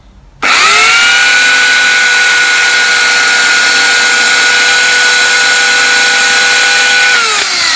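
Titan electric chainsaw switching on, its motor spinning up within a moment to a steady high whine, running at an even pitch, then falling in pitch near the end as the trigger is released and it winds down.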